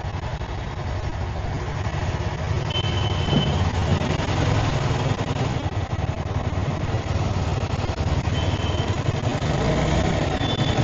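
A motor vehicle running along a road: a steady engine and road rumble that builds a little, with a few short high beeps about three seconds in, near eight and a half seconds, and again near the end.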